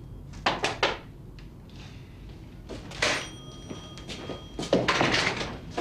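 A few sharp knocks about half a second in, then door thuds and rattling from about three seconds on, as a wooden office door is handled.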